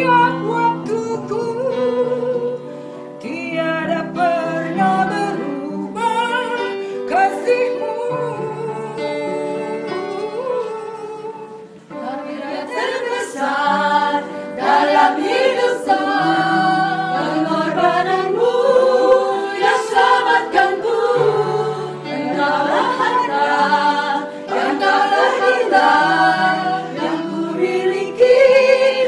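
Women singing a Christian gospel song with vibrato over an instrumental accompaniment of long held low notes, with a brief lull between phrases about twelve seconds in.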